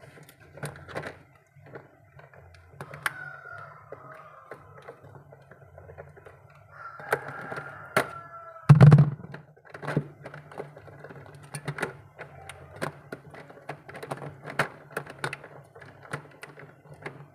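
Pliers clicking and snipping at the wiring of a refrigerator's evaporator defrost thermostat: many small sharp clicks, with one louder thump about nine seconds in, over a faint low hum.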